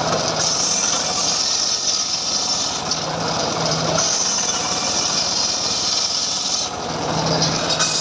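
Homemade engine-driven table circular saw running steadily while its blade rips lamtoro (leucaena) wood into boards. The high cutting noise eases off about four seconds in and again near the end, leaving the engine's low hum, as each piece is fed.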